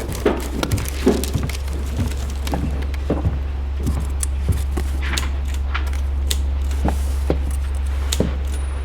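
Steady low hum of an old desk fan under irregular knocks and clicks, about two a second at first and sparser later: footsteps on a wooden floor. A short paper rustle comes about five seconds in.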